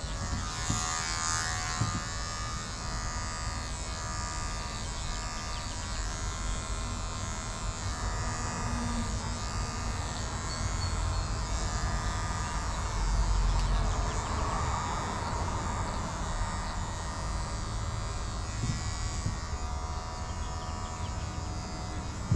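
Electric hair clippers buzzing steadily while cutting hair. The buzz gets briefly louder around the middle.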